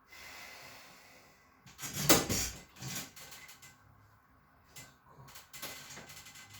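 Seated chiropractic manipulation of a man's upper back. A breath is followed about two seconds in by a loud thrust with joint cracking, then a few smaller clicks and pops.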